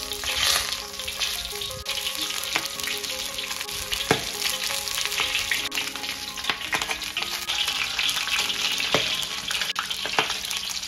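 A whole river carp pan-frying in smoking-hot oil in a wok, the oil sizzling steadily around it, with a few sharp clicks of a spatula against the wok.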